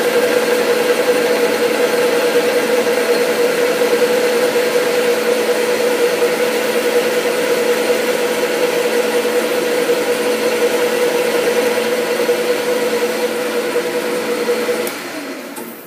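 Metal lathe running steadily under power while a carbide-insert tool takes a clean-up cut along a worn steel shaft, a steady hum with a clear whine. The sound dies away near the end.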